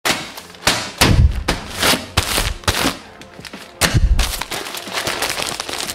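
Plastic poly mailer bag crackling and rustling as it is handled, with heavy thuds about a second in and again near four seconds in.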